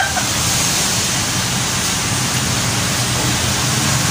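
Heavy rain pouring down, a steady, even rush of noise.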